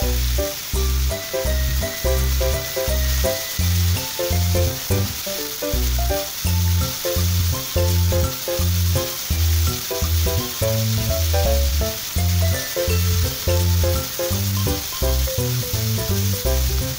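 Vegetables sizzling in a frying pan as they are stir-fried with chopsticks, over background music with a pulsing bass line.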